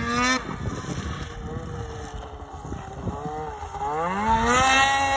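Snowmobile engine running at high revs, dropping off under half a second in, running lower and unevenly, then revving up again about four seconds in and holding high.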